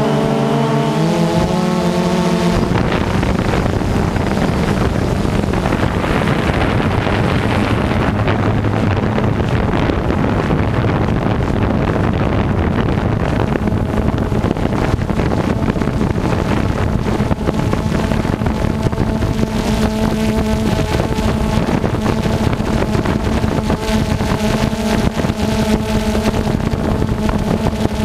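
Harvest machinery running under load: a large engine drones steadily, its pitch dipping briefly and recovering about a second in, with a dense mechanical rush over it.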